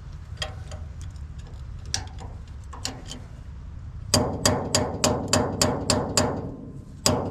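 Hammer tapping on metal: a few light taps, then a quick run of about nine ringing blows at about four a second, and one more blow near the end.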